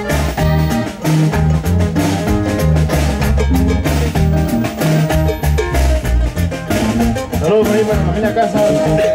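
Live norteño band playing: button accordion over bajo sexto, electric bass and drum kit, with a steady beat.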